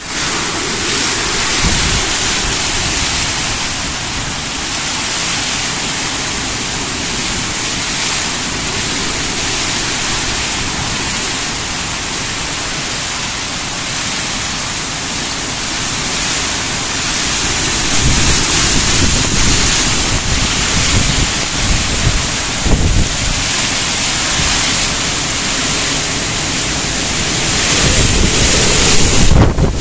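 Heavy rain pouring steadily, with strong wind gusting across the microphone; the wind buffeting grows heavier in the second half and peaks near the end.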